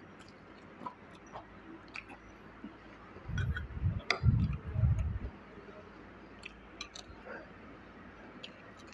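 A person eating a rice bowl with crispy fried chicken: chewing and small clicks of a metal spoon against the bowl. From about three to five seconds in there is a louder run of low, muffled bumps with one sharp click.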